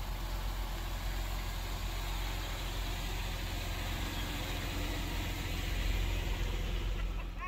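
Buick Lucerne's engine idling while parked: a steady low hum.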